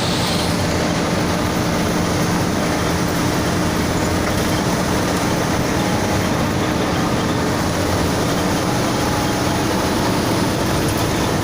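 Bus running at speed: a steady engine drone over an even rushing noise, with no change in level.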